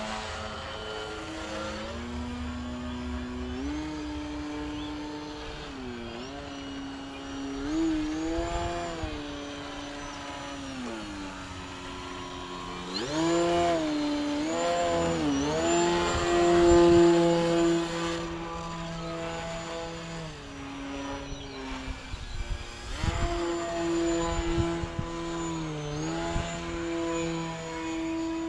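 Flex Innovations Mamba 10 radio-controlled aerobatic plane in flight, its electric motor and propeller whining. The pitch climbs and falls again and again as the throttle is worked, and it is loudest about halfway through and again near the end.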